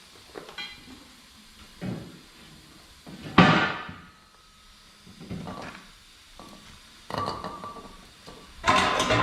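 Heavy steel parts being worked by hand: a series of separate metal clanks and knocks, some ringing briefly, the loudest about three and a half seconds in and several close together near the end.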